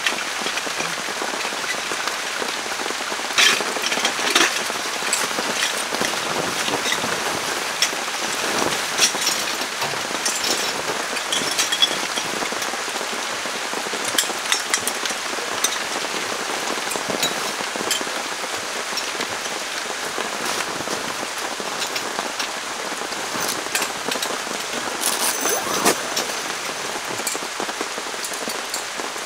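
Steady, fairly loud rain falling, with many sharp individual drops ticking on nearby surfaces.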